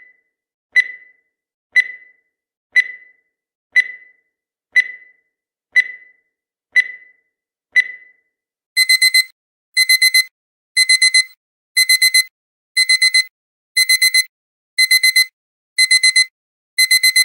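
Countdown timer beeping: a single short high beep once a second for the final seconds of the count. About eight seconds in, the timer reaches zero and the alarm starts, with groups of four quick beeps repeating every second.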